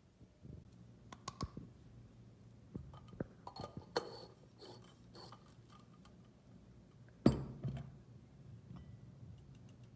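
Small clicks and clinks of ceramic tableware being handled on a table, with one sharper knock about seven seconds in.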